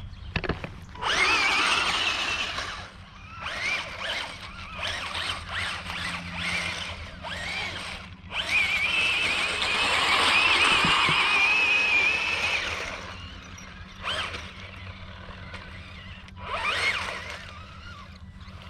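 Bwine Q111 RC crawler tank's small electric drive motors whining in several short runs with a wavering pitch as it is driven over rocks and wood chips, the longest run about midway.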